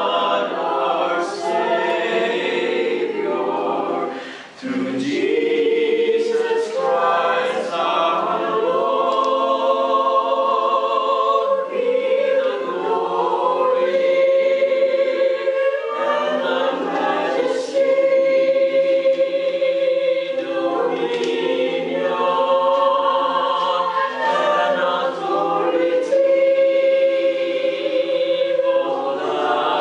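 A small group of people singing a hymn together in long held notes, with a brief break for breath about four seconds in.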